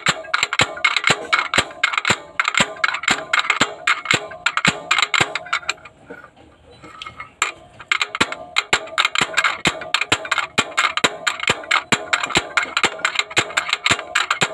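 Improvised slide-hammer puller, its steel weight knocking repeatedly against the stop on its rod about three to four times a second, working to pull a broken injector sleeve out of a Caterpillar 3116 diesel cylinder head. The knocking breaks off for about a second and a half midway, then resumes.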